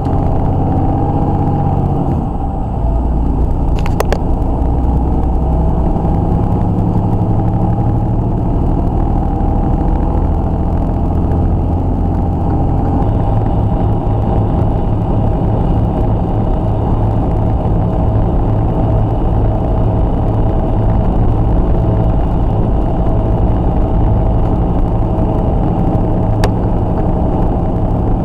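Semi truck's diesel engine droning steadily with road noise, heard from inside the cab while cruising. A single sharp click comes about four seconds in.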